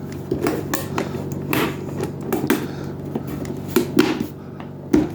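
Plastic housing panels of a Keurig K-Supreme coffee maker being handled and pressed into place: irregular sharp clicks and knocks, a dozen or so, over a faint steady hum.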